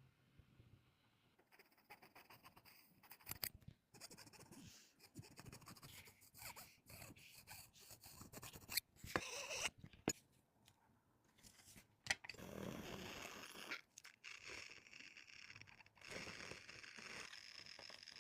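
Faint, irregular scraping and clicking of small hand tools working on a smartphone, with sharp ticks here and there and a few longer stretches of steady scraping.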